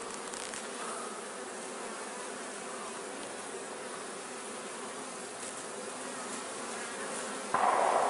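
Honeybees from a freshly hived swarm buzzing steadily around the hive box. The sound gets abruptly louder near the end.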